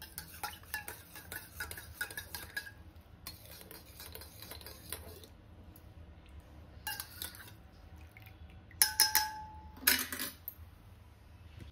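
Metal spoon clinking against cups and dishes while the drink is stirred and poured out. There is a run of quick light clinks over the first five seconds, then a few louder strikes near the end, one ringing on for about a second.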